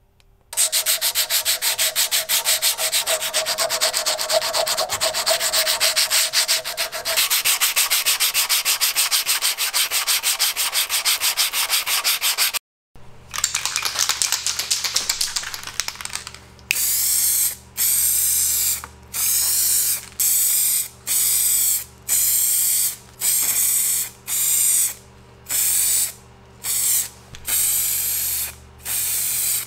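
A continuous fast rasping scrape for the first dozen seconds. After a cut, an aerosol spray can is sprayed in about a dozen short bursts of hiss, each lasting about a second, as paint is laid onto the metal parts.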